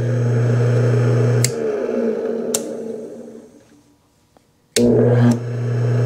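Old GE half-horsepower electric utility motor running with a steady electrical hum. About a second and a half in, a click cuts the power, the hum stops at once and the motor whirs down to a stop over about two seconds. Near the end the hum comes back suddenly as the motor is powered up and runs again.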